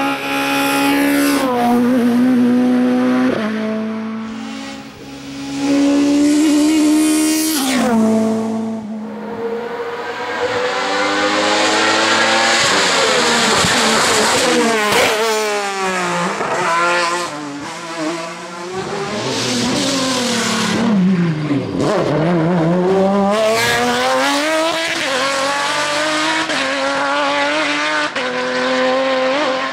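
Hill climb race cars at full throttle: engines rev up and drop in pitch at each gearshift, then rise and fall as cars sweep past.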